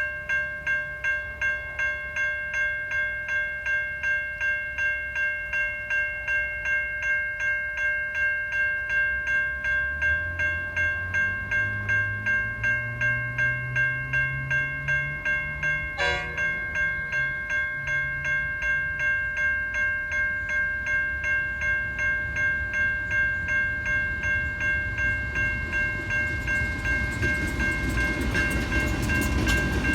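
Level-crossing electronic warning bells (Safetran Type 3) ringing steadily at about two strokes a second. Midway, a diesel locomotive's engine note rises as it powers up, with a sharp click about sixteen seconds in. Near the end the rumble of an approaching standard gauge train builds up.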